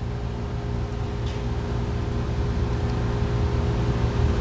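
Steady low hum of running machinery with a few faint steady tones above it, growing slowly a little louder.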